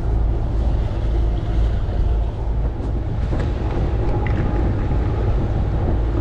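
Sailboat's inboard diesel engine running steadily while motoring, with wind buffeting the microphone.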